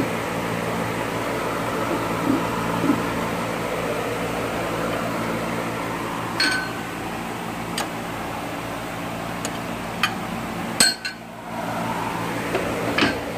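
A few sharp metallic clinks, some with a short ring, from handling a lathe's cast-iron tailstock and the eccentric shaft set between its centres, over a steady hum in the workshop.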